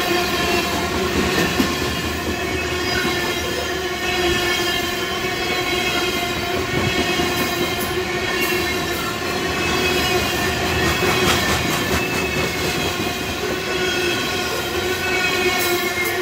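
Norfolk Southern freight train of covered hopper cars rolling past close by: a steady rumble of wheels on rail with occasional clacks, and several steady ringing tones held over it.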